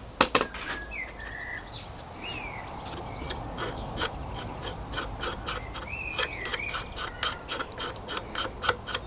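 Balsa wood being worked by hand: a run of quick, short rubbing strokes, about three a second in the second half.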